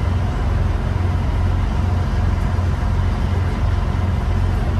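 Tour boat's engine running with a steady low drone, under a constant hiss.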